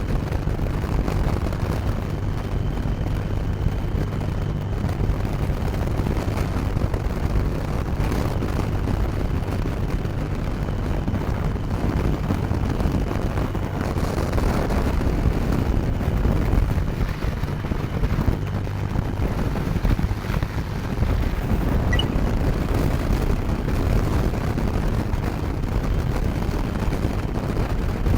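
Triumph three-cylinder motorcycle engine running steadily at cruising speed, with heavy wind noise on the bike-mounted microphone.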